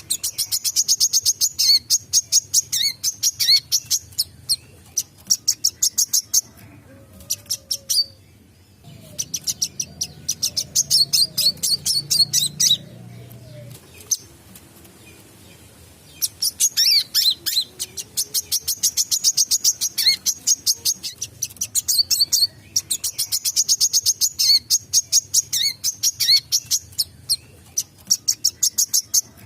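A wiceh sunbird singing vigorously in long runs of rapid, sharp, high chirps, with a couple of short pauses before it starts up again.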